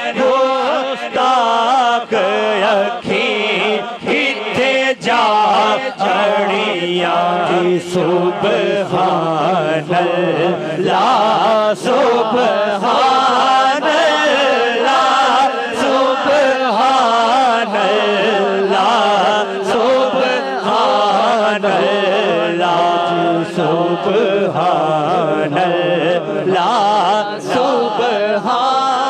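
A man singing a naat, a devotional poem in praise of the Prophet, in a melismatic, ornamented melody into a microphone over a sound system, with a steady low drone held beneath his voice.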